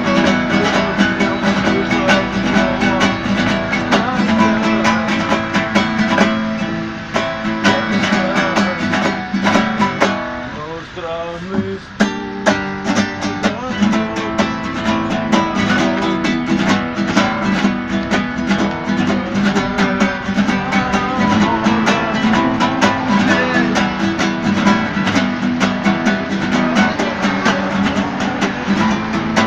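Acoustic guitar strummed in a steady, driving rhythm, with a short quieter break about ten seconds in before the strumming resumes.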